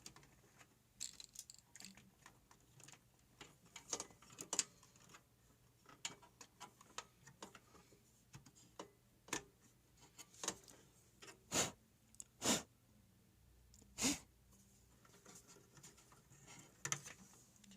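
Scattered clicks, knocks and rattles of hands working parts loose inside an old HP desktop PC case as its power supply is taken out. A few louder knocks come about two-thirds of the way through.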